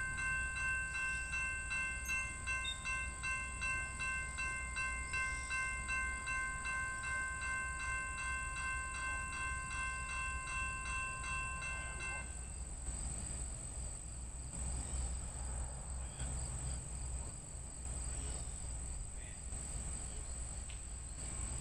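A railroad crossing bell rings steadily at about two strokes a second, then cuts off suddenly about twelve seconds in. Under it runs a low rumble from the approaching train, with a steady high drone of insects throughout.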